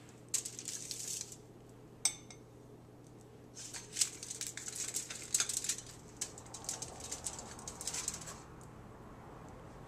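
A metal spatula scraping and sliding across aluminum foil on a baking sheet as baked cookies are lifted off, in short scratchy bursts with the foil crinkling. One sharp metallic tap about two seconds in.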